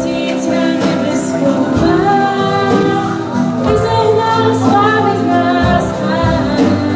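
A girl's amplified voice singing a song, accompanied by a live band of clarinets, drum kit and keyboard.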